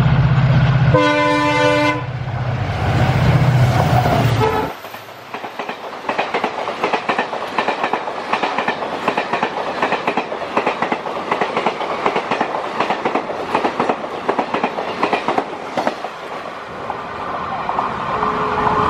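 WDP-4D diesel locomotive's EMD two-stroke V16 engine running hard as it comes through, with a horn blast lasting about a second near the start. A few seconds in the engine drone drops away as the locomotive passes, and the passenger coaches roll by with rapid clickety-clack of wheels over rail joints, fading near the end.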